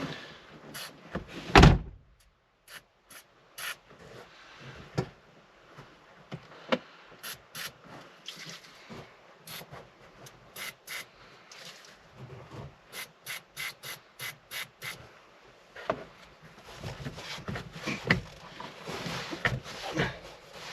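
Hands fitting a fabric seat cover onto a car seat: rubbing and rustling of the cover with many short clicks and snaps, some in quick runs, and one loud thump about two seconds in.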